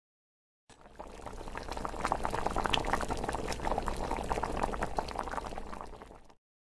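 Hot oil sizzling with dense, irregular crackling, as in deep-frying. It starts about a second in, swells, and fades out near the end.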